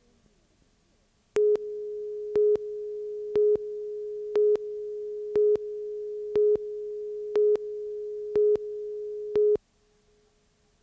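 Tape countdown leader tone: a steady electronic test tone starting about a second and a half in, with a short, louder beep once a second, nine times, then cutting off about a second before the end.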